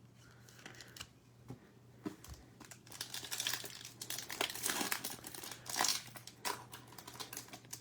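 A foil trading-card pack wrapper being torn open and crinkled by hand: a few light clicks, then a dense run of crackling through the middle, fading near the end.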